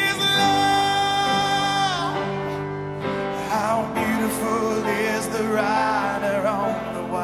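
Live worship band music: a singer holds one long note, then moves into wavering, wordless vocal runs over sustained chords from the band.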